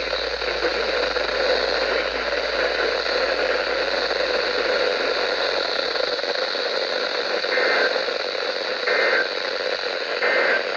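Steady loud hiss of radio static. Near the end come three brief EAS digital data bursts, each a short warbling chirp, about a second and a half apart.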